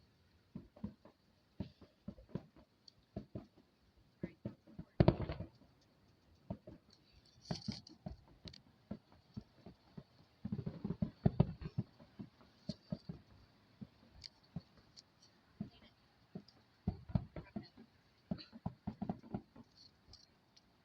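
Distant fireworks finale: many sharp pops and bangs, coming in dense volleys about five seconds in, around eleven seconds and again near the end, with scattered single reports between.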